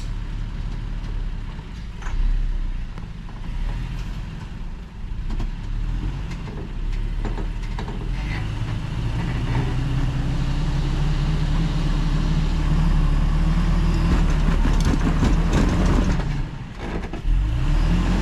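Toyota Tacoma pickup's engine pulling under load as the truck crawls up a rock ledge. The engine note grows louder and climbs through the middle, drops away briefly near the end, then picks up again.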